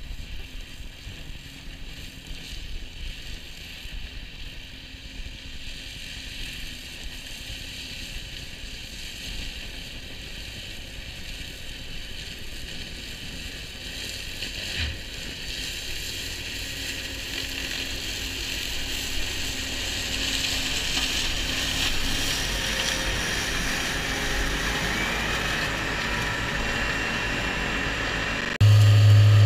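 New Holland tractor with a Shelbourne reach-arm flail hedge cutter mowing a ditch bank: engine rumble under the whirr of the flail head cutting grass, growing steadily louder as it draws near. About a second before the end it jumps suddenly to a much louder steady low hum, heard close to the machine.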